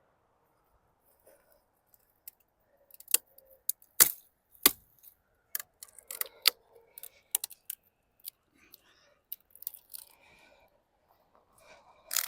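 Dry dead wood and twigs cracking and snapping, a series of irregular sharp cracks with the loudest a little past a third of the way through.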